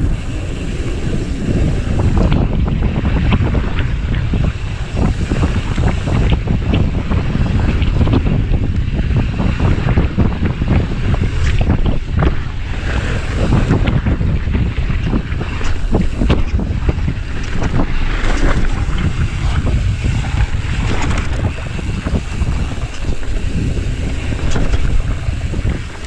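Wind buffeting an action camera's microphone on a mountain bike riding fast down dirt singletrack. Under it are tyre rumble on dirt and frequent rattles and knocks from the bike over bumps.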